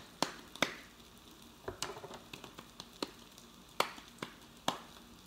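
Hands patting and flattening a ball of mashed-potato dough between the palms, a run of soft slaps at an uneven pace, as a pupusa-style patty is shaped.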